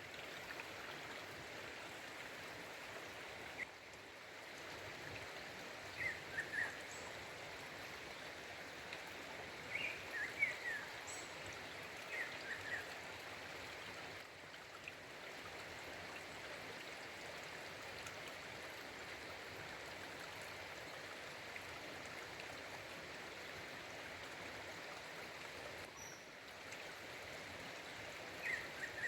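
A female black-throated grosbeak (bico-de-pimenta) gives short chirping calls in small groups of two or three, spaced several seconds apart. Under the calls runs the steady rush of a nearby waterfall.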